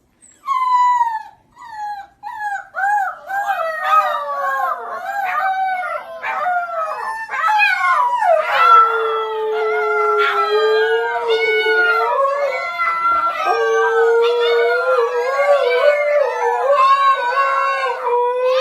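Several dogs howling together: short yelps and whines at first, then from about three seconds in a chorus of overlapping, long, wavering howls.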